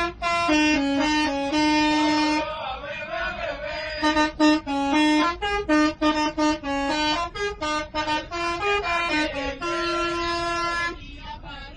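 Buses' multi-tone musical horns playing a melody of short, stepping notes, sounded back and forth between two buses as a greeting. The notes stop about a second before the end.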